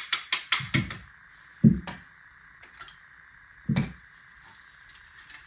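Quick, light mallet taps on a subgauge-tube removal tool seated in a shotgun barrel, about six a second, driving the tube out; the tapping stops about a second in. Two dull knocks follow, a couple of seconds apart.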